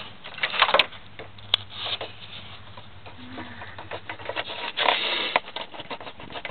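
Plastic clicks, rattles and scraping as parts are worked loose from their retaining clips by hand, with a few sharp clicks and a longer scrape about five seconds in.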